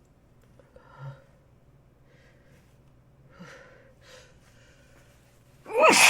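A person takes a few short, gasping breaths in, then lets out a loud, sudden sneeze near the end.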